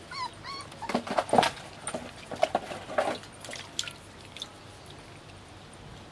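Five-week-old puppies whimpering and yelping: a few short high squeals at the start, then a second or two of scuffling knocks and yips as they tussle. It settles to quiet after about four seconds.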